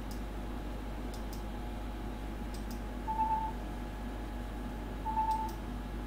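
Two short electronic beeps about two seconds apart, over a steady low hum, with a few faint double clicks in between.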